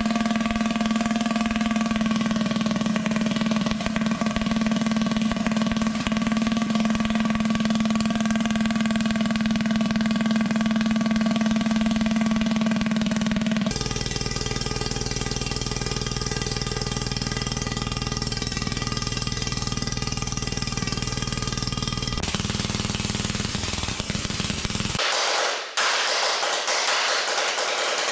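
Homemade pulse detonation engine running on the bench with a steady, rapid-firing drone at a constant pitch. About halfway through, the sound changes abruptly to a deeper, rougher drone as the engine runs with a 3-inch outlet fitted. Near the end it switches to a harsher, higher sound with the deep part gone.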